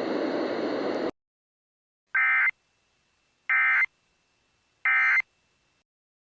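Emergency Alert System end-of-message signal: three short identical bursts of digital data tones, each under half a second, about a second and a half apart. Before them a steady background noise cuts off suddenly about a second in.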